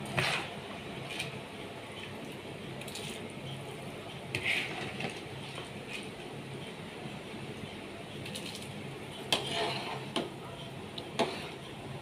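Salted water with whole spices boiling in an aluminium pot, ready for the rice, with a few short knocks and clinks of a utensil against the pot; the loudest come about four and a half and nine and a half seconds in.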